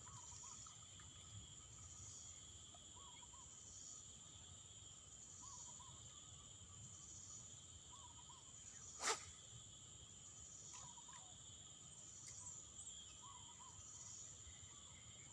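Faint, steady insect chorus, its shrill high note swelling and fading about every two and a half seconds. A soft short call repeats at the same pace, and a single sharp click comes about nine seconds in.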